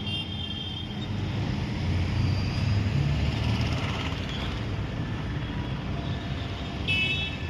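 A heavy engine running with a steady low rumble, and a brief high-pitched whine at the start and again near the end.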